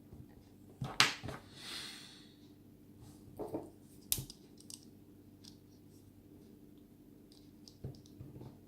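A few sharp metal clicks and light scraping of small tools on the parts of an Abus 72/40 padlock being taken apart. The loudest click is about a second in, followed by a short hissing scrape, with another sharp click a few seconds later.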